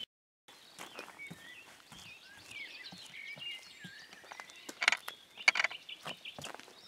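Small birds singing and chirping, with scattered clicks, knocks and rustles from handling, and two louder short noises about five seconds in. It begins after about half a second of silence at an edit.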